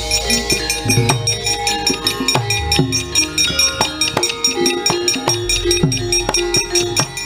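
Javanese gamelan playing fight-scene accompaniment for wayang kulit: repeated kendang drum strokes that drop in pitch, under bright, quickly repeated metallic notes and held metallic tones.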